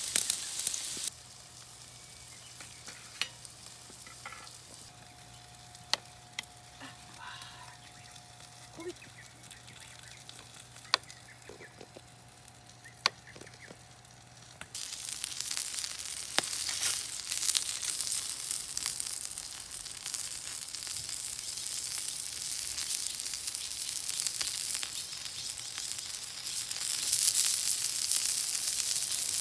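Food sizzling over a wood fire: an even high hiss with scattered sharp crackles. It drops to a quieter stretch with a few clicks from about a second in, and comes back loud about halfway through.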